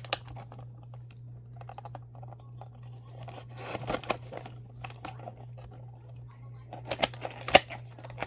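Toy car packaging being handled and opened: scattered crinkles and clicks of plastic and cardboard, with a cluster about halfway through and the sharpest clicks near the end, over a steady low hum.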